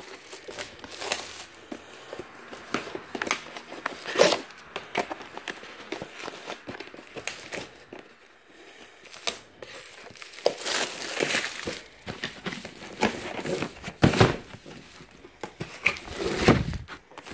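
Plastic wrap crinkling and packing tape tearing off a cardboard box as it is opened by hand, with several louder rips.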